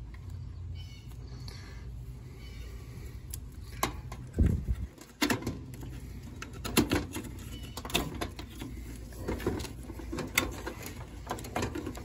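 Plastic wire-harness connectors being unplugged from a heat pump pool heater's control board: a run of sharp clicks, knocks and wire rustling from about four seconds in, with one heavy thump, over a steady low hum.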